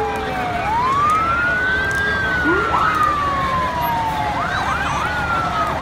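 Fire truck siren wailing: the pitch sinks slowly, rises, sinks slowly again, then breaks into a few quick yelps near the end. Under it runs the steady low rumble of the trucks.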